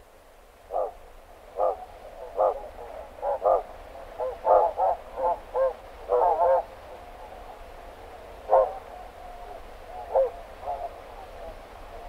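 Barnacle geese calling at their roost: a run of short, sharp calls from nearby birds, coming thick and fast through the middle and thinning out towards the end, over fainter steady calling from the rest of the flock.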